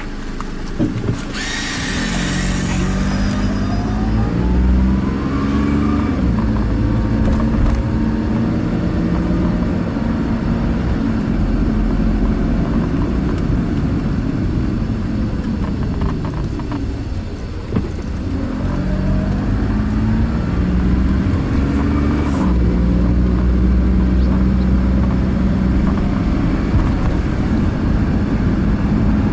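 Car engine and road noise heard from inside the cabin as the car pulls away and speeds up, its pitch stepping up through the gears. Near the middle it eases off, then speeds up again through the gears.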